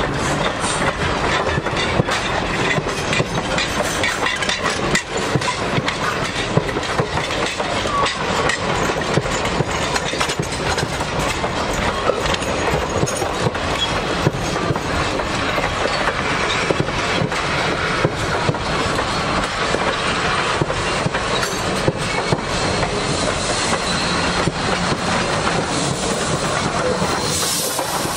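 Riveted steel passenger coaches of a steam-hauled train rolling past close by: steel wheels clicking over rail joints over a steady rumble. Near the end the steam locomotive comes by with a hiss of steam.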